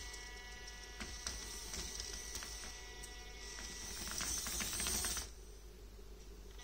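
Micro RC crawler's tiny N20 geared drive motor whining under load as the truck climbs rock, with scattered small clicks. It grows louder about four seconds in, then cuts off abruptly a little after five seconds.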